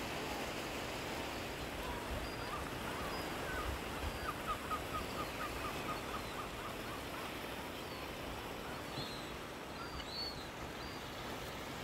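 Steady wash of small sea waves on a rocky shore. A bird calls a quick run of short notes a few seconds in, and a few higher calls follow later.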